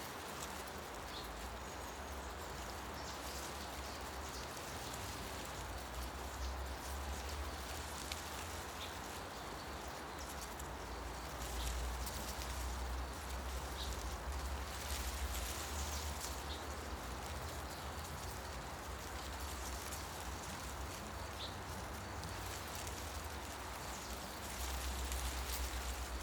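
Wind through tree leaves, giving a steady rustling hiss over a low rumble that swells a little midway and again near the end, with a few faint, short bird chirps.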